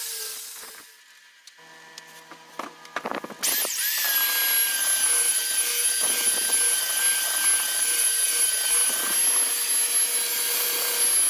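Homemade wood router (trimmer) motor winding down, then after a short lull with a few light knocks it starts up again with a quick rising whine about three and a half seconds in. It then runs steadily at high speed, a high whine over a rough grinding noise.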